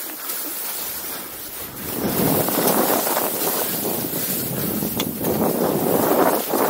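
Skis hissing and scraping over snow as the skier turns down the slope, with wind rushing over the microphone. The rush grows louder from about two seconds in and swells and eases with the turns.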